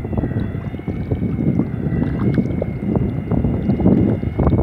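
Bow-mounted electric trolling motor pushing a kayak: a steady high whine that wavers slightly in pitch, over choppy water splashing along the hull and wind buffeting the microphone.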